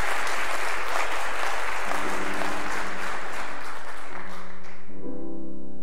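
Audience applauding, dying away about four and a half seconds in. A grand piano starts playing soft sustained notes about two seconds in and adds a fuller chord near the end.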